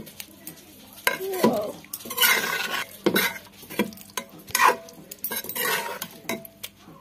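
Metal ladle stirring a thick jackfruit and potato curry in an aluminium pressure cooker, in irregular strokes of scraping and clinking against the pot with wet squelching of the food.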